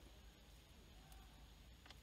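Near silence, with two faint clicks of hands handling the car's plastic dashboard trim, about a second in and just before the end.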